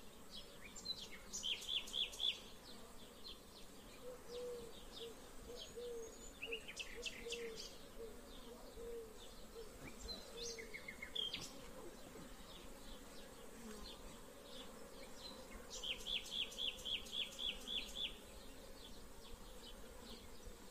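Honeybees buzzing around an open hive as brood frames are lifted out, the hum wavering in pitch as bees fly past. A songbird sings several quick trilled phrases over it, the longest and loudest near the end.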